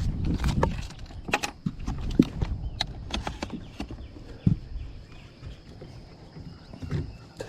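A series of irregular knocks and clunks over a low rumble.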